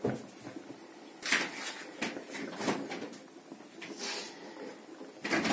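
Kitchen handling sounds: about five short knocks and clicks spread over a few seconds, with the loudest near the start and near the end. They sound like cupboard doors, dishes or utensils being moved, over a low steady background.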